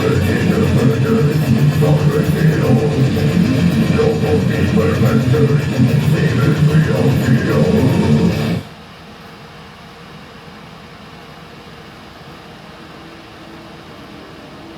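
Guitar-led background music that cuts off suddenly about two-thirds of the way in, leaving a faint steady hiss.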